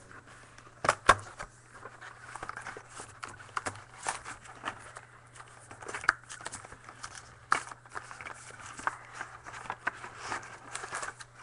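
Crinkling and rustling of trading-card packaging being opened and handled, with scattered sharp clicks and taps; the loudest is a pair of clicks about a second in. A steady low hum runs underneath.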